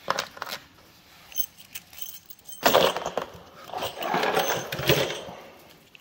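Loose metal screws and lock parts clinking and scraping on a work surface as they are handled and cleared away. A few light clicks at first, then a louder stretch of rustling and clatter that lasts a few seconds.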